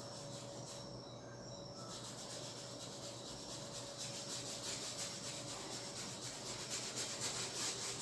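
Paintbrush rubbing paint onto a stretched canvas in faint, quick scrubbing strokes, becoming more distinct in the second half.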